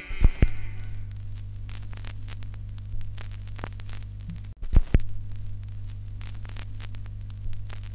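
Steady low electrical hum with scattered crackles and clicks. Two louder thumps come through it, about a quarter second in and again just before five seconds.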